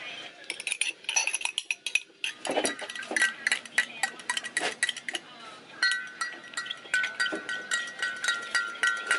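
Thin metal spoon stirring quickly inside a glass measuring jug, clinking against the glass many times a second. A steady high ringing tone runs alongside the clinks in the second half.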